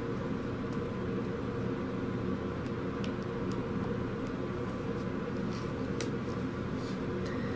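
Steady low machine hum with a few faint light clicks of a diamond painting pen tapping drills onto the canvas.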